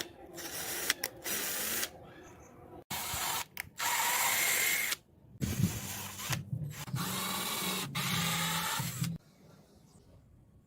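Small motor of a homemade mini excavator whirring in a series of bursts, each about a second long, starting and stopping abruptly as the machine is worked in short moves.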